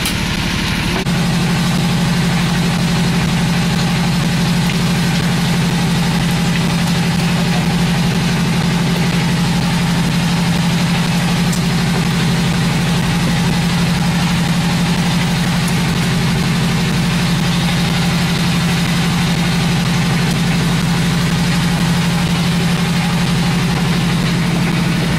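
A boat's engine running steadily with a constant low hum, a little louder from about a second in.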